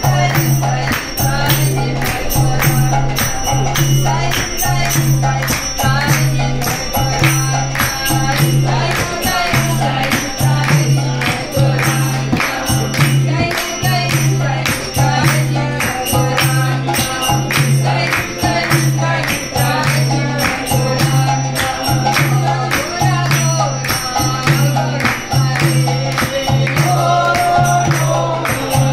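Devotional kirtan: a woman's voice and a group of voices singing over a harmonium, with a mridanga drum and hand claps keeping a steady beat.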